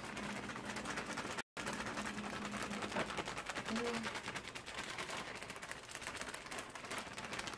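Cake-mix bag crinkling and rustling in quick, irregular clicks as it is shaken to sprinkle the dry mix over the peaches. The sound cuts out completely for a moment about a second and a half in.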